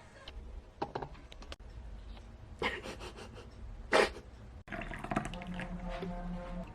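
Kitchen handling sounds: scattered clinks and knocks with water, one louder clatter about four seconds in, then a steady hum through the last two seconds.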